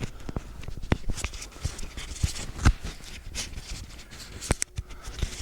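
Handling noise on a clip-on microphone as it is unclipped and moved on clothing: irregular rustling with sharp clicks and knocks against the mic.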